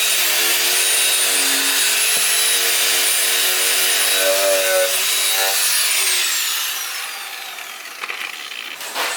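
A rotary power tool grinding paint and rust off the classic Mini's steel bodywork, a loud, harsh grinding with a steady high whine. About six seconds in it is switched off and the whine falls away as it spins down, followed by a few sharp knocks near the end.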